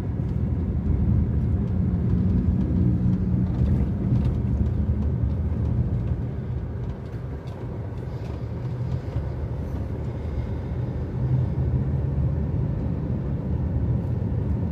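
Car engine and road noise heard from inside a moving car: a steady low rumble that grows quieter for a few seconds about halfway through, then builds again.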